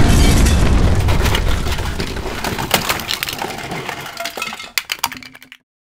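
Explosion sound effect dying away: a heavy low rumble that fades over several seconds, with scattered sharp crackles and clicks of debris, cutting off abruptly about five and a half seconds in.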